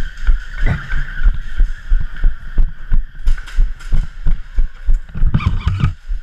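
Running footsteps on a concrete floor, thudding about three times a second, with gear rattling along with the strides.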